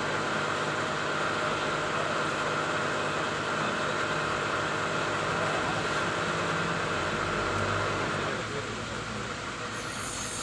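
A steady mechanical drone with a constant hum, easing off about eight seconds in.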